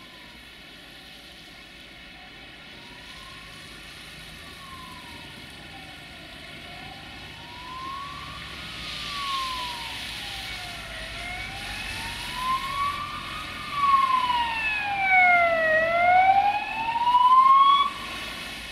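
Emergency vehicle siren wailing, its pitch slowly rising and falling about every four and a half seconds. It is faint at first and grows much louder over the second half, over a steady hum.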